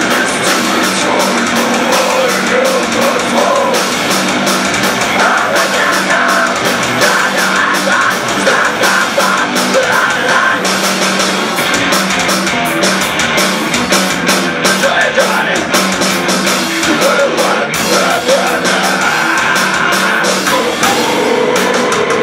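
Live rock band playing loud, with electric guitars, bass and drums.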